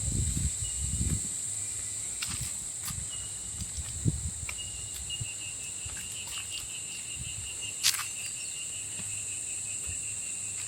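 A steady, high-pitched insect chorus from the rainforest, with a faster pulsed trill joining in about three seconds in. A few soft low thumps near the start and around four seconds in.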